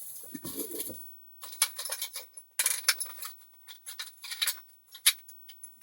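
Small hard parts clicking and clattering in quick, irregular taps as they are handled and sorted through, with a plastic cap picked out among them.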